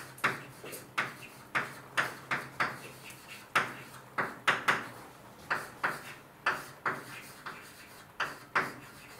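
Writing on a board by hand: a string of sharp, irregular taps, about two a second, as each stroke strikes the board.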